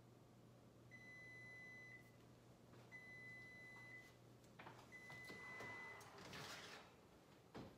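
Electronic wall-oven timer beeping: three faint, steady, one-second beeps about two seconds apart, signalling the end of the timed bake. Near the end a short rush and clatter as the oven door is opened.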